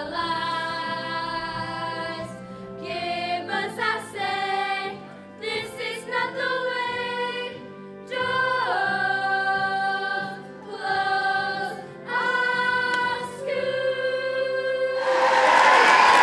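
A choir singing a slow song, held notes moving from one pitch to the next, over a musical backing. About a second before the end, loud applause and cheering break in over the last note.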